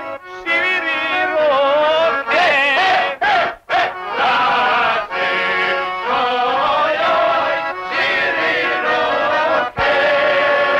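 A group of men singing a song together in full voice, with long held notes that waver in pitch and brief pauses between lines.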